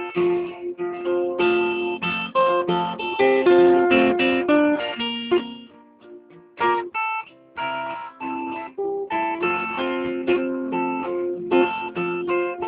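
Acoustic guitar playing an instrumental break of picked notes and strummed chords, with a brief lull about six seconds in.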